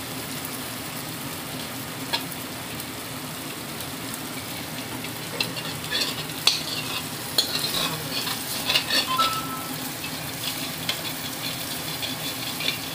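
Curry gravy sizzling in an aluminium kadhai while a spoon stirs it, the water just added to the masala. Clusters of spoon scrapes and clinks against the pan come from about five to nine seconds in.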